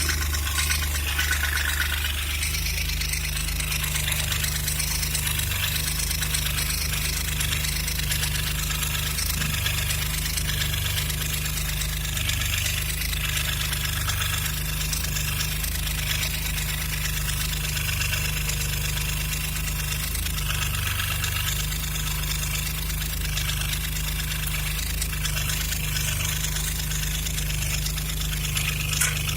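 Alfa Romeo GTV V6 Turbo engine idling steadily, carrying a suspect noise at idle that the owner wants to identify.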